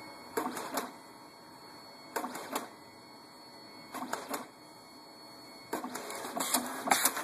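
Compact photo printer running as it feeds out a print. A steady motor whir is broken every couple of seconds by short bursts of mechanical clatter, with a longer, busier stretch of clatter near the end.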